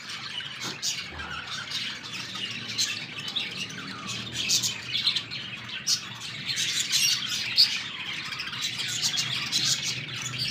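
A dense chorus of small birds chirping and calling, many short high calls overlapping without a break.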